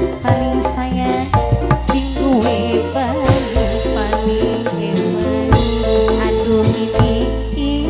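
Live dangdut band music: a hand-drum pattern over a steady bass line, with a wavering melody line on top.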